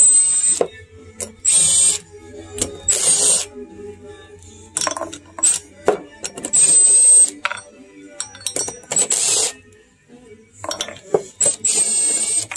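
Metal engine parts and hand tools clinking and knocking, broken by about half a dozen short hissing bursts with a high whine, each under a second.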